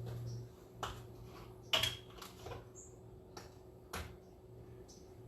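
A few light clicks and knocks from kitchen containers and utensils being handled, the loudest a little under two seconds in and another near four seconds, over a low steady hum.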